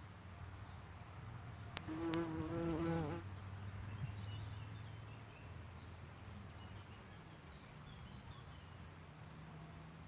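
Flying insect buzzing close to the microphone: a low steady hum throughout, with two sharp clicks about two seconds in followed by a louder, wavering buzz lasting about a second.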